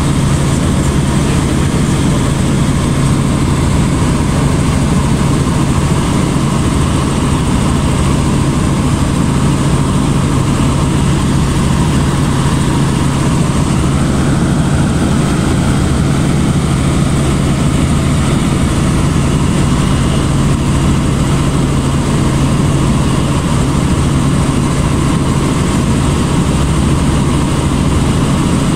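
Robinson R44 helicopter in cruising flight heard from inside the cabin: a loud, steady drone of engine and rotor with a constant low hum underneath.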